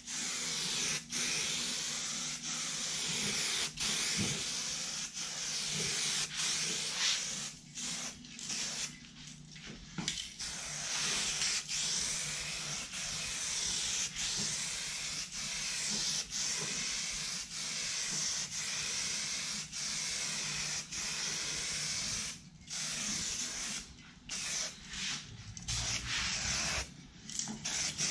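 Aerosol can of black spray paint hissing as a final coat goes onto a plastic mudguard. The spray runs in long passes cut by many brief stops as the nozzle is let go, the stops coming thicker a third of the way in and again near the end.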